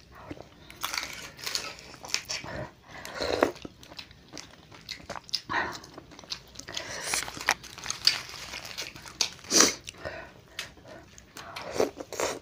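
Close-miked eating of crab seblak, a spicy noodle soup: wet slurping of noodles and broth, chewing and crunching, in irregular bursts.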